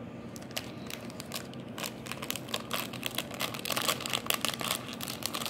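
A Lego minifigure blind bag, a thin silvery foil packet, crinkling and tearing as it is pulled open by hand; the crackles grow denser and louder from about two seconds in.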